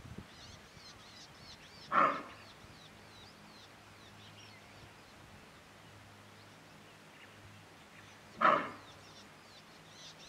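Greater kudu giving two short, gruff alarm barks about six seconds apart, with birds chirping faintly in the background.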